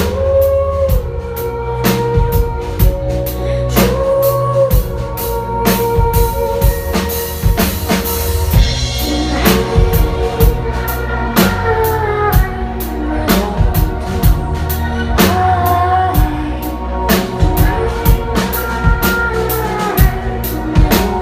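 Live electro-rock band music with no singing: a drum kit keeps a steady beat over a heavy bass, with sustained melodic lines above that slide between notes.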